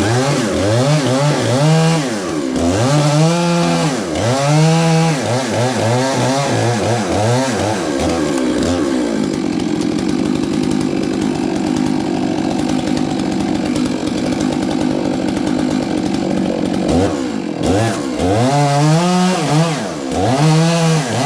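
Chainsaw engine revved up and down over and over, then held at a steady pitch for several seconds, then revved up and down again near the end.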